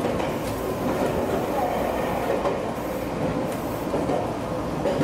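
Meitetsu 2200 series electric train running: steady rolling noise with a wavering whine and a light clatter over rail joints.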